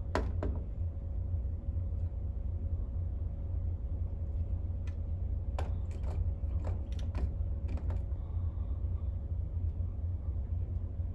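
Scattered sharp clicks, two near the start and a quick cluster about five to eight seconds in, from switches being flipped and the Simplex 4002 fire alarm panel being handled, over a steady low hum.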